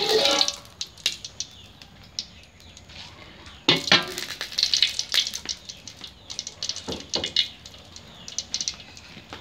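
Oil and garlic, shallot and chili spice paste frying in a wok, crackling in intermittent clusters. A metal spatula scrapes across the wok at the start and again about four seconds in.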